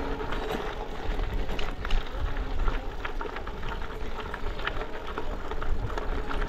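Wind rushing over the action camera's microphone while the bicycle rolls along the road, a steady rumbling hiss with tyre noise and scattered light clicks.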